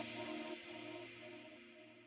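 Background music fading out.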